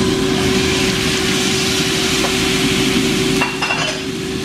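Thin-sliced deer meat sizzling loudly in a hot frying pan, stirred with a wooden spatula. About three and a half seconds in comes a short clatter, and the sizzle eases a little.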